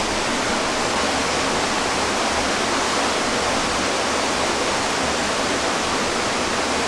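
A steady, even rushing noise with no other sound standing out.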